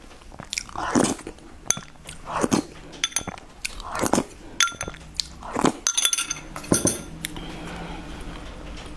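Metal spoon clinking against a ceramic bowl several times as spoonfuls are taken from it, each clink ringing briefly.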